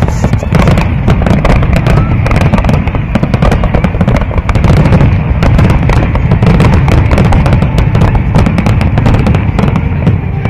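Loud fireworks display: a dense, continuous barrage of crackles and bangs over a heavy low rumble.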